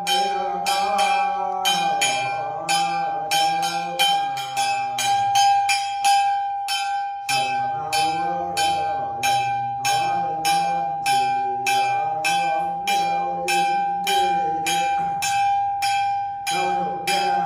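A small hand bell struck or shaken in a steady rhythm, about two or three strikes a second, with a sustained ringing tone under a man's ritual chanting. The chanting breaks off for about a second near the middle while the bell keeps going.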